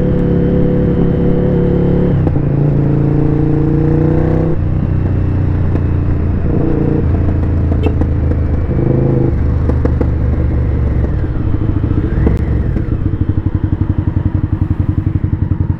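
Sport motorcycle engine running steadily under the rider, its pitch stepping down a couple of times early on as the revs change. From about three quarters of the way in, it settles into a slow, even throb of single firing pulses at low revs as the bike slows.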